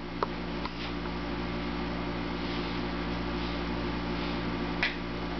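A steady machine hum with a few light clicks and taps from a baby handling plastic toys, the sharpest one near the end.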